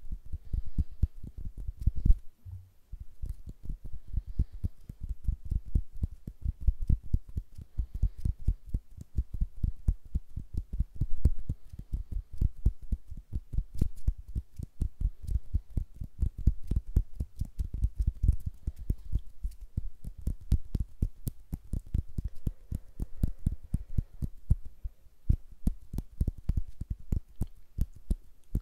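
Hand sounds: fingers fluttering and flicking right in front of an ASMR microphone, giving a fast run of soft low thumps, several a second.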